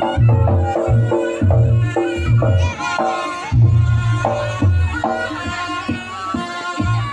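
Live Reog Ponorogo ensemble music: a pitched wind melody with bending notes, played over drums and gongs that beat about twice a second.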